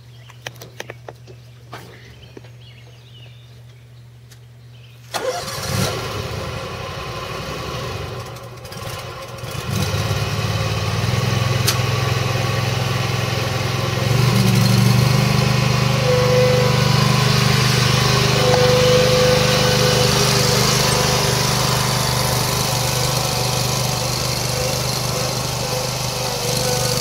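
Cub Cadet Tank zero-turn mower's engine starting right up about five seconds in, after a few faint clicks, then running steadily. It gets louder around ten seconds in and again around fourteen, as the mower is driven off.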